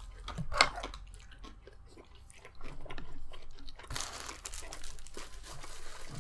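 Crunching and chewing of crispy Korean-style fried pork (tangsuyuk), a dense crackle of bites with a sharp click about half a second in.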